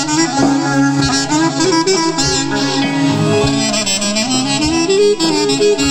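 Amplified Greek folk band playing an instrumental passage: a clarinet leads with an ornamented, winding melody over a steady beat.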